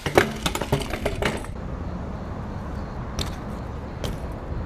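BMX bike and rider crashing against a metal wire-mesh frame: a quick run of metallic clattering and knocks in the first second and a half, then two lighter knocks later.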